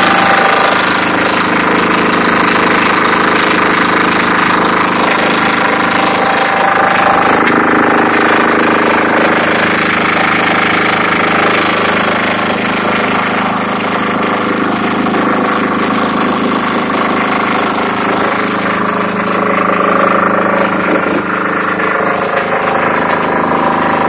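KOOP KDF6500Q 6 kVA silent diesel generator running steadily inside its enclosed canopy.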